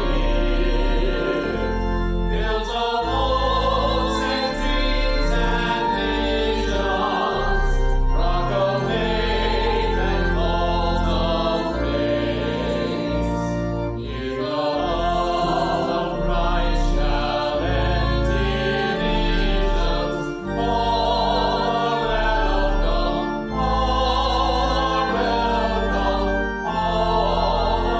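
A choir singing a hymn in parts, with instrumental accompaniment holding low sustained chords that change every second or two.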